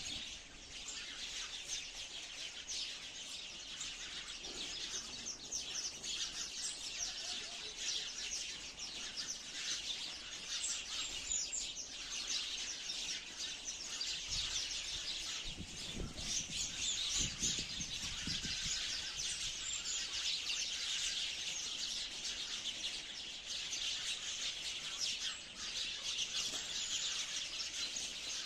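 A flock of sparrows chirping continuously, many high chirps overlapping into a dense chatter. A brief low rumble comes about halfway through.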